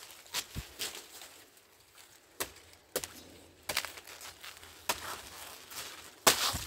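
A machete chopping into a plantain's fibrous pseudostem: a string of sharp, irregularly spaced blows, about eight in all, the loudest near the end.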